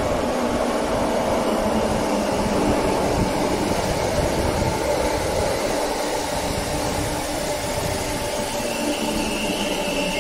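Merseyrail electric train running on the track, a steady noise with a constant hum. Near the end a high-pitched wheel squeal begins.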